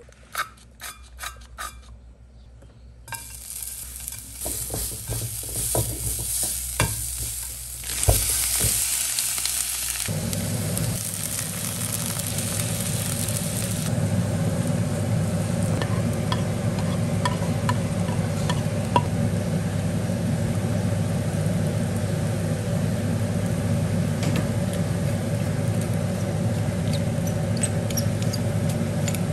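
Meat and vegetables frying in oil in a nonstick wok, sizzling while being stirred with a spatula, with a few utensil clicks before the frying starts about three seconds in. About ten seconds in, a steady low hum comes in and runs under the sizzling to the end.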